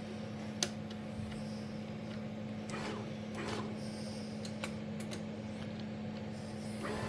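A steady low electrical hum, with a few faint clicks and light knocks.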